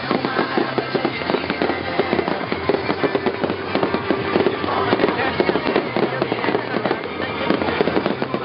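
Fireworks display: many shells bursting and crackling in quick succession, a continuous dense crackle with frequent pops.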